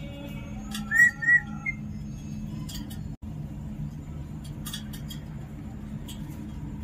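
Pet parrot giving two short whistled notes about a second in, over a steady low hum.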